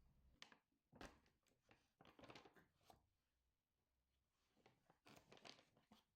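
Near silence with a few faint rustles and light knocks: small sounds of something being handled.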